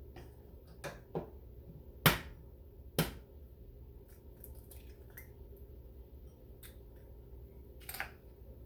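Eggs being cracked against the edge of a mixing bowl: a few sharp taps, the loudest about two seconds in, another a second later and a lighter one near the end.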